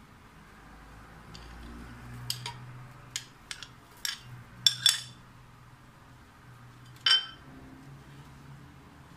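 Frozen banana slices tipped from a ceramic plate into a glass blender jar: a quick run of sharp clinks and knocks of plate and fruit against the glass between two and five seconds in, then one more ceramic-and-metal clink about seven seconds in.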